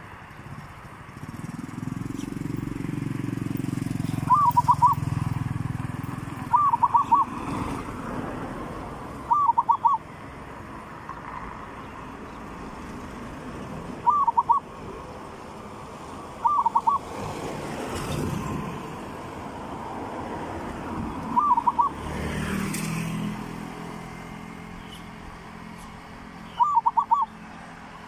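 Zebra dove cooing: seven short bursts of quick rolling notes, each well under a second, a few seconds apart. A low rumble underlies the first few seconds and comes again about 22 seconds in.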